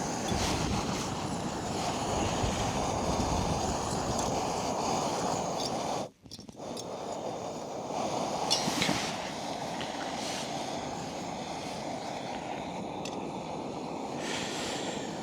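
Fire Maple canister gas stove burning, a steady rushing hiss of the burner under its windshield, dropping out for a moment about six seconds in.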